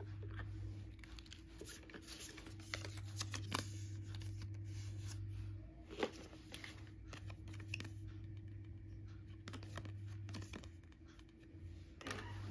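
Paper leaflets, cards and a cardboard box being handled: irregular rustling, scraping and light taps, with one sharp click about six seconds in, over a steady low hum.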